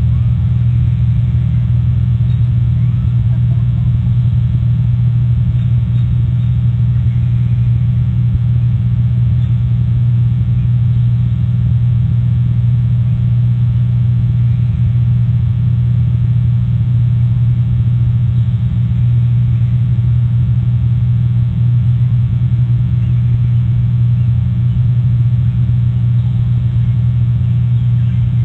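A steady low hum with a ladder of evenly spaced overtones that does not change.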